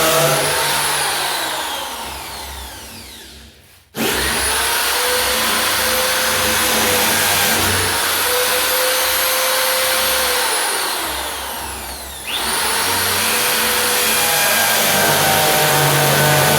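Britânia BFU01 electric drill motor running at full speed with a high whine. It is let off and spins down almost to a stop, then is triggered again about four seconds in. Near the end it slows once more and is quickly triggered back up to full speed.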